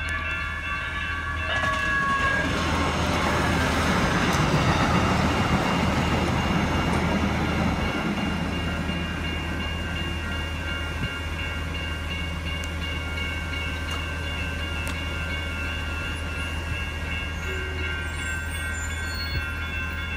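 Several electronic railroad-crossing bells (General Signal, NEG and WCH types) ringing steadily at an active crossing. A UTDC light rail train passes over the crossing, its rumble loudest about four to six seconds in and then fading.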